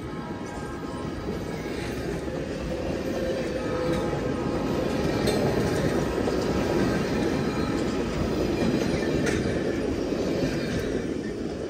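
Canadian Pacific passenger train led by F-unit diesel locomotives passing: wheels running on the rails with faint clicking, growing louder to a peak midway and fading toward the end.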